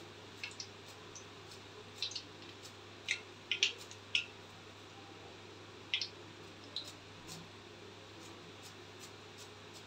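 Fried cabbage pakodas draining in a wire-mesh skimmer over hot oil in a kadai: scattered light crackles and ticks, a few at a time, over a faint steady hum.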